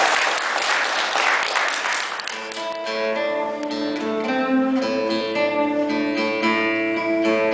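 Live band playing: guitars strummed, starting with a noisy wash of sound for about two seconds, then held chords that change every second or so.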